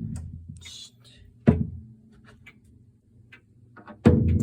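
Mechanical pendulum clock movement (Hermle 451-050) ticking faintly, with two louder knocks that ring briefly: one about a second and a half in and one near the end.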